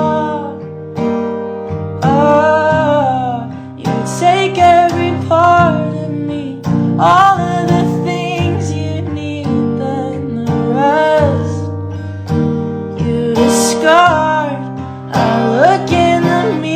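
Acoustic guitar accompaniment with a singing voice carrying long, wavering held notes in phrases.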